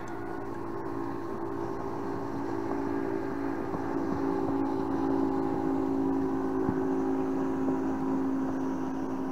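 Motorboat engine running with a steady, pitched drone that swells a little louder about five seconds in and then eases off.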